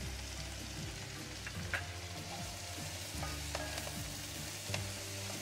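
Chopped peppers, mushrooms and spring onions sizzling in olive oil in a nonstick wok over high heat, stirred with a wooden spoon that taps sharply against the pan a few times.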